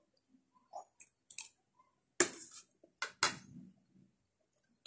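Eating sounds over a meal of snails in coconut milk with rice: scattered small clicks and ticks, with two louder short sharp sounds about two and three seconds in.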